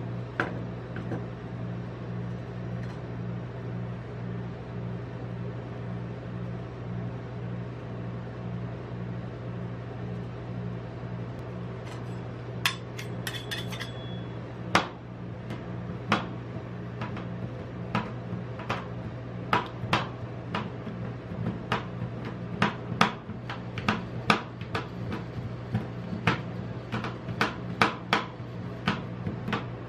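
Metal spatula blades chopping a chocolate bar into ice cream base on a steel cold plate, the blades clacking sharply against the metal. The chopping starts about halfway through and quickens to a few strikes a second near the end, over a steady low machine hum.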